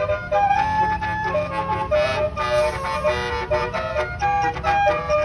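A tour bus's basuri telolet horn, a multi-note air horn, playing a melody in quick stepped notes over a low engine rumble.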